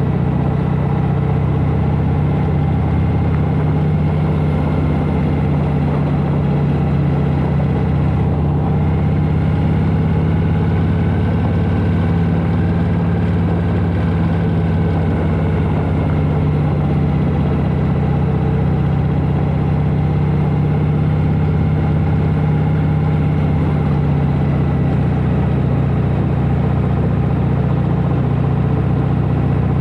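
1992 Harley-Davidson Heritage Softail Classic's 1340 cc Evolution V-twin running steadily while the motorcycle is ridden at low speed. Its pitch rises a little and falls back about halfway through.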